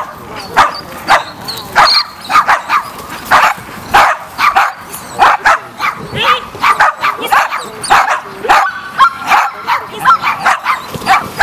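A dog barking repeatedly and loudly, in short sharp barks about two a second.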